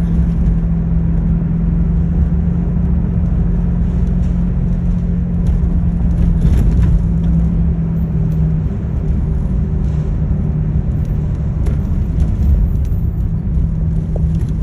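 Steady low rumble of a running vehicle with a continuous hum, the hum easing briefly about halfway through.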